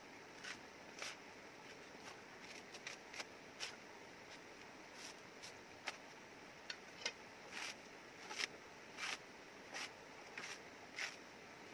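Machete chopping and prying into a coconut's fibrous husk while the husk is torn off in strips, making irregular short cracks and rips. A flowing river runs steadily underneath.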